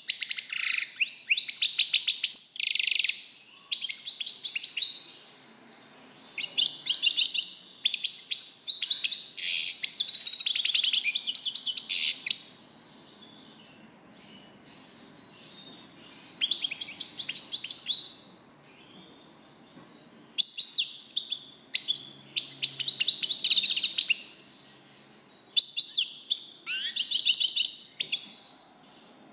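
European goldfinch singing: fast, twittering phrases of trills and sharp notes, delivered in several bursts of a few seconds each, with a quiet spell of about four seconds in the middle.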